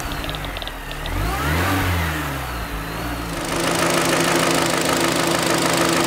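An engine revs up and falls back. Then, about three and a half seconds in, the Kia Sportage's 2.0-litre G4KD four-cylinder runs steadily with a knock, which the shop puts down to scored cylinders.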